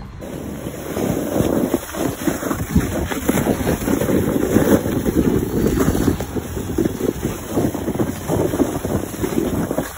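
Plastic sled sliding fast down a snow slope, a rough hissing and scraping over the snow mixed with heavy wind buffeting the phone's microphone. It starts suddenly and stops near the end as the ride ends.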